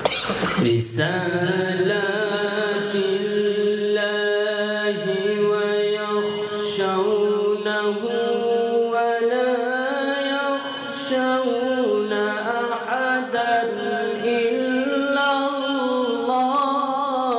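A man reciting the Quran in Arabic in a long, melodic chanting style. He holds drawn-out phrases with slow turns in pitch.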